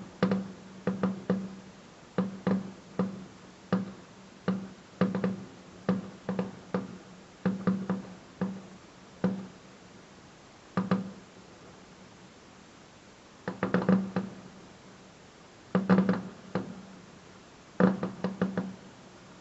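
Fireworks bursting overhead: a run of sharp bangs at uneven intervals, some single and some in quick clusters of three to five, with a pause in the middle.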